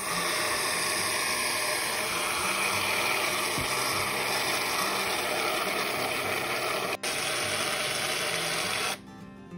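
Aerosol can of whipped cream spraying: a steady, loud hiss with a split-second break about seven seconds in, stopping about nine seconds in.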